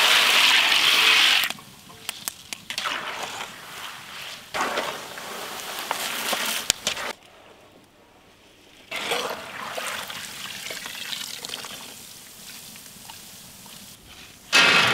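Raw peanuts deep-frying in a large wok of hot coconut oil. The sizzle is loud as the peanuts go in, then carries on more faintly with scattered clicks, with a loud short burst of sizzling near the end.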